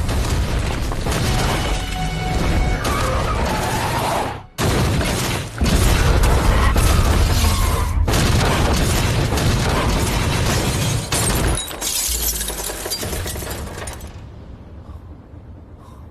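Action-film soundtrack: dramatic score mixed with loud crashes, booms and shattering. There is a brief break about four seconds in, and the sound dies away near the end.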